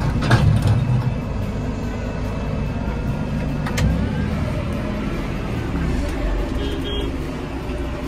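Massey Ferguson tractor engine running steadily, heard from inside the cab, with a couple of short knocks, one about half a second in and one near four seconds.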